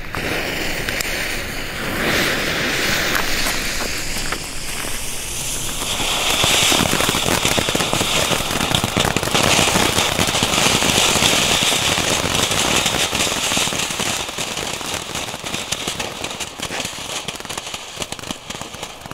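Three small firework ground fountains burning together: a steady hissing spray of sparks with fast crackling throughout. It swells to its loudest in the middle and dies down near the end.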